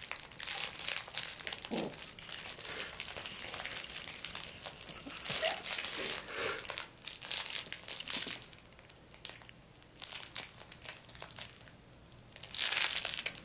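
A litter of Labradoodle puppies scrambling and wrestling on blankets, a crackly rustling and crinkling of fabric with a short squeak or two. It eases off for a few seconds after the middle, then a loud spell of rustling comes near the end.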